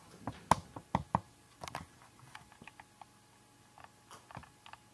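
Scattered light clicks and taps from small handling, the sharpest few in the first second and a half, then fainter irregular ticks.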